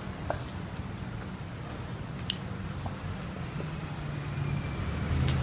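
Street traffic rumbling steadily, with a couple of sharp clicks, the clearest about two seconds in. Near the end a vehicle engine's hum grows louder.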